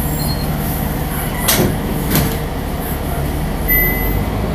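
City bus interior: the engine runs with a steady low hum, two sharp knocks or rattles about half a second apart come in the middle, and a short electronic beep sounds near the end.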